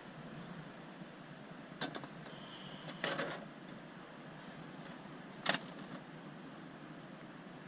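A few short, light knocks and clatters of objects being handled over a steady background hiss.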